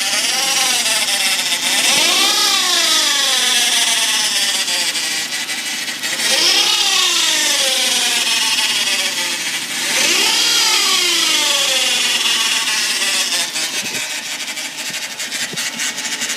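2003 Dodge Neon engine revved up and let fall back about three times, the pitch climbing and sinking in slow arches, over a loud steady hiss. This is the odd sound that began together with the automatic transmission slipping, its cause unknown to the owner.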